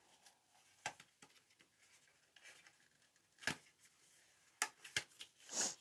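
A small cardboard product box being handled and opened: a few sharp clicks and taps spread out, with a short sliding rustle near the end.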